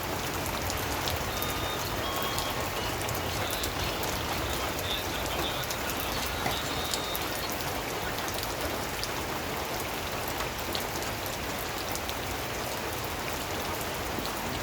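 Steady rain falling, with many individual drops striking a surface.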